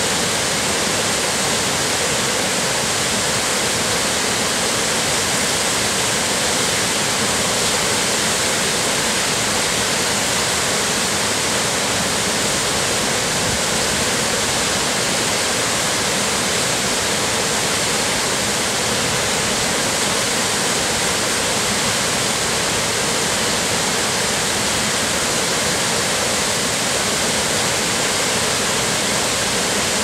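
A wide waterfall pouring steadily over a ledge into a rocky gorge, with the river rushing below it: an even, unbroken rush of water.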